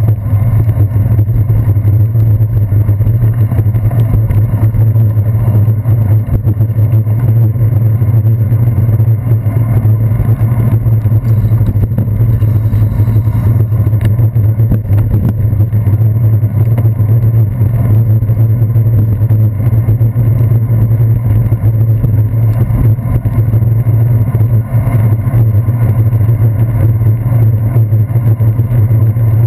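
Loud, steady, muffled low rumble of a bicycle ride on wet city streets, picked up through a handlebar-mounted GoPro Hero 2 in its waterproof housing: road vibration and wind on the housing, with little high end.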